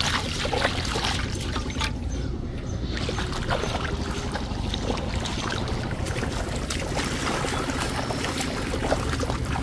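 Shallow, muddy paddy water sloshing and splashing with many small splashes as someone wades through it and handles a metal pot, over a steady low rumble of wind on the microphone.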